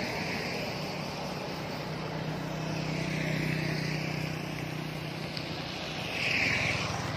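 Roadside traffic: engines of motorbikes and a car approaching on the road, a steady hum and road noise, swelling louder about six seconds in.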